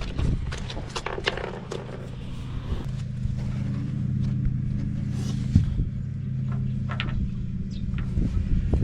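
A steady low engine hum, like a motor running nearby, with scattered clicks and a scrape, most of them in the first two seconds, and one sharp knock about halfway through.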